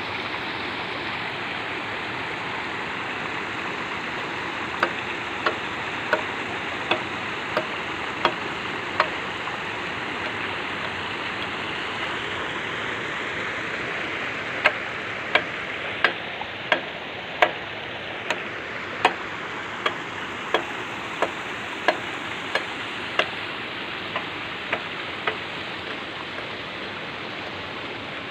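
Water rushing steadily through a net fish barrier strung across a flooded channel. Two runs of sharp, evenly spaced ticks, about one every 0.7 s, sound over it partway through.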